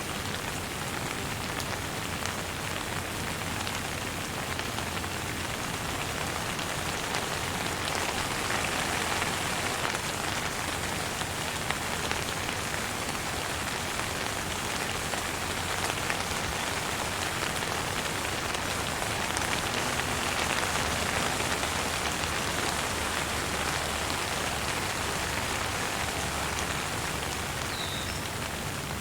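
Steady rain falling on a surface, a dense even patter of many drops, swelling slightly a couple of times.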